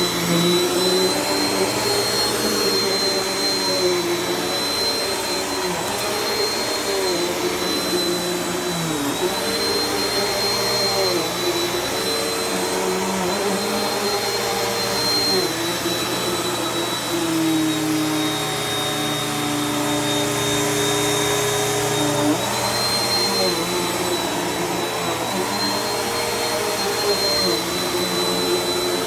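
Bissell PowerForce bagless upright vacuum running on a thick shag rug. Its motor note dips and recovers in pitch every few seconds as it is worked over the pile, with a thin steady high whine above it.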